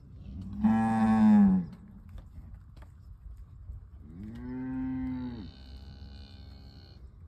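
Young calf bawling twice: a loud call just over a second long about half a second in, then a quieter call about four seconds in, each dropping in pitch as it ends.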